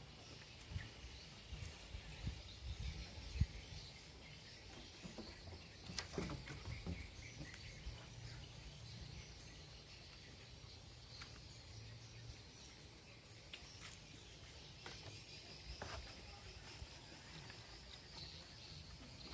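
Quiet outdoor ambience: a steady low rumble with a few short knocks, the sharpest about three seconds in, and faint high chirping in the background.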